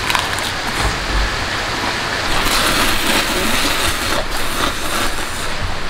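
A steady hiss, with a man slurping instant ramen noodles and eating about four seconds in.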